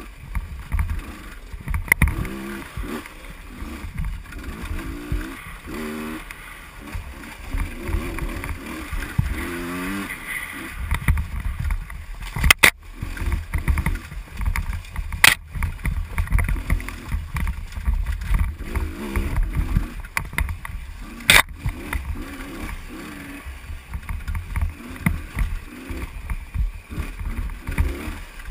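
Two-stroke enduro motorcycle ridden hard on a dirt trail, the engine revving up and falling back again and again through the gears, with heavy wind buffeting on the helmet-mounted camera's microphone. Three sharp knocks cut through, about halfway in, a few seconds later, and again near three-quarters of the way.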